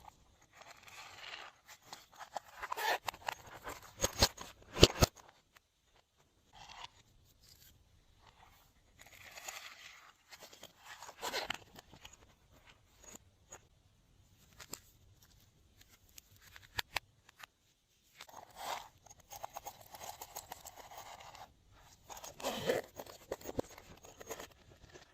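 Glossy slime being squished and stretched by hand, giving sticky crackles and sharp clicking pops in irregular bursts with short quiet gaps between them. The sharpest clicks come about four to five seconds in.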